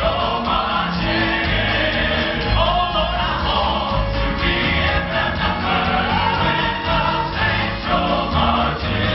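Southern gospel male vocal ensemble singing together in close harmony into handheld microphones, amplified, with keyboard accompaniment over a steady low beat.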